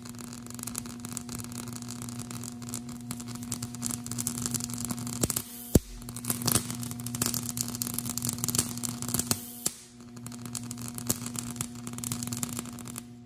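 High-voltage AC arc from a flyback transformer, drawn out as a flame-like plasma between an alligator clip and a probe: a continuous crackling hiss over a steady hum. There is a sharp snap about six seconds in and a brief drop-out near ten seconds, and the arc stops at the end.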